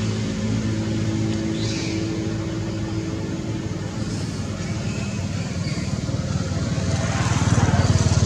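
A vehicle engine running with a steady low hum, growing louder near the end.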